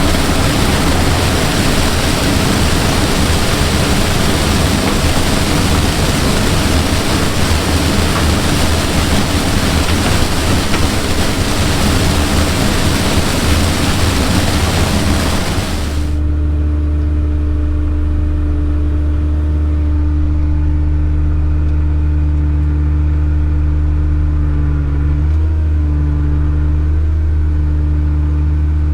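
Combine harvester running in a corn field: a loud engine hum under a dense hiss of machinery. About 16 seconds in it switches abruptly to a steady, lower engine drone with the hiss gone.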